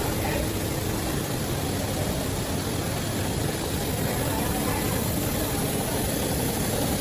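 3000 W fiber laser cutting machine running while cutting 10 mm steel plate: a continuous low rumble and hiss, steady without breaks.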